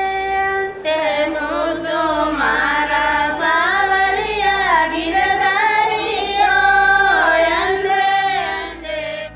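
A woman singing an Indian melody, with long held notes and ornamented, gliding pitch, over a low steady accompaniment.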